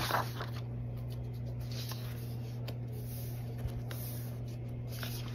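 A paper page of a spiral-bound workbook turned over with a short rustle at the start, followed by soft brushing and rubbing of a hand on the paper as the page is smoothed flat. A steady low hum runs underneath.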